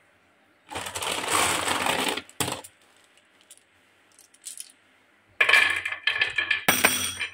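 A handful of marbles clinking and clattering together, in one burst about a second in and another near the end. Sharp clicks come as the marbles are set down into the grooves of a wooden rail.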